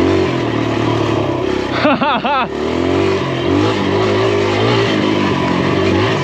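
Kawasaki KLX140 dirt bike's single-cylinder four-stroke engine running under changing throttle while riding a tight trail. A brief warbling sound comes about two seconds in.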